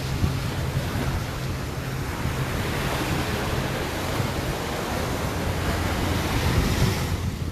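Ocean surf breaking and washing up the beach in a steady wash, swelling louder for a few seconds midway, with wind buffeting the microphone as a low rumble.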